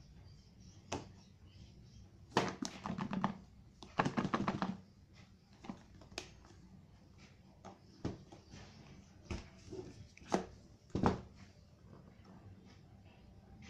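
Cardboard smartphone box being handled: a blade slicing through the seal stickers in two short scratchy bursts, then scattered sharp taps and knocks as the box is turned over and its lid worked loose.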